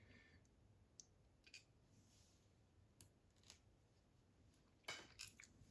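Faint, scattered small clicks of metal lock parts being handled while a lock cylinder is taken apart, with a quick cluster of clicks near the end; otherwise near silence.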